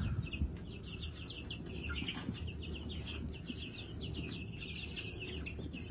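A brood of young New Hampshire chicks peeping continually, many short high peeps overlapping in quick succession, over a low steady rumble.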